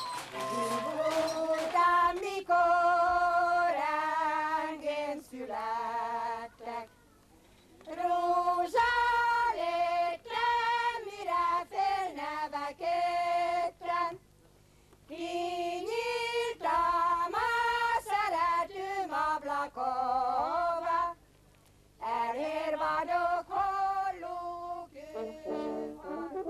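A single high voice singing a slow melody with vibrato, in phrases broken by short pauses about every seven seconds.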